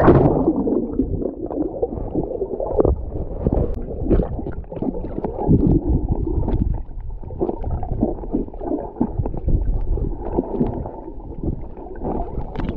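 Muffled water gurgling and sloshing, with irregular knocks and bumps.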